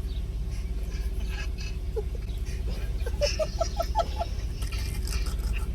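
Car engine idling with a steady low rumble. About three seconds in, a quick run of short, high chirping notes is heard over it.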